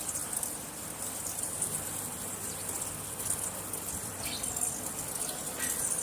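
Metal lathe cutting, a steady high-pitched hiss from the tool working the spinning workpiece, with faint crackle running under it.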